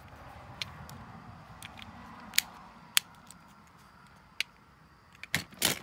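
Fidget cube being clicked by hand: single sharp clicks scattered a second or so apart, then a quick run of louder clicks near the end.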